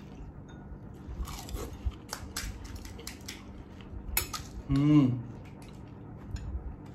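Spoons and dishes clinking and knocking, a string of short clicks as golgappas are filled and eaten, with a brief vocal sound from a person about five seconds in.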